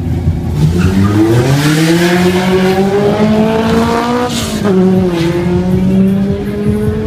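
Drag-race cars, a Mini Cooper against a Honda Civic, launching off the line at full throttle. The engine note climbs steadily for about four seconds, drops briefly at a gear change, then climbs again as they pull away.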